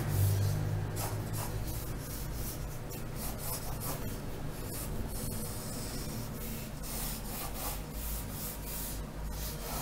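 Pencil lead scratching on paper in a series of short strokes as lines are sketched, over a low steady hum.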